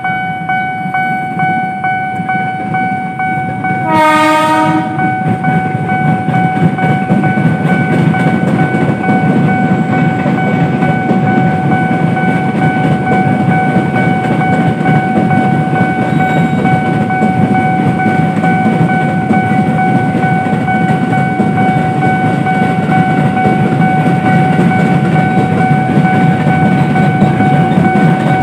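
KRL electric commuter train passing: a short horn blast about four seconds in, then the loud rumble and wheel clatter of the cars over the rails. A steady high-pitched ringing tone sounds under it all.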